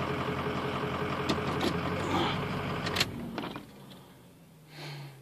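A steady hum under a rushing noise, with a few sharp clicks; about three seconds in it drops away and leaves it much quieter.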